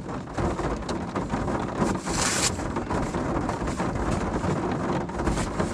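Steady rain noise on the car roof heard from inside the cabin, with a brief crinkle of plastic about two seconds in as a poncho packet is handled.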